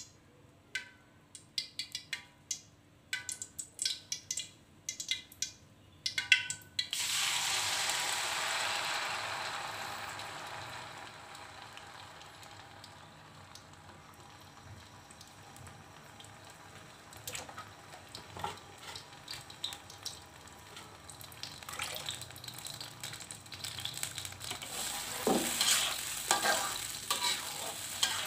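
Hot oil in a wok popping with sharp separate clicks. About seven seconds in, a sudden loud sizzle as blended chili spice paste goes into the oil, fading to a steady frying sizzle. Near the end, a wooden spatula stirs and scrapes the paste around the wok.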